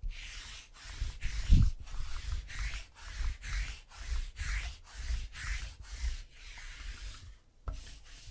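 Lint roller rolled back and forth across the tabletop in quick rubbing strokes, about two a second. It stops near the end, followed by a couple of sharp knocks.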